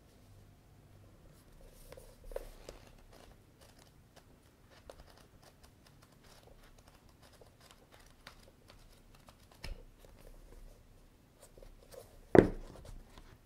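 Paperback manga volume flipped through by hand: pages riffling and rustling with small crisp ticks, then the closed book makes one loud thump near the end.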